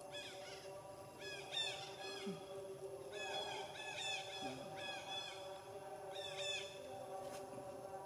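Infant macaques giving short, high, squeaky calls, each rising and falling in pitch, in quick groups of two to four repeated several times.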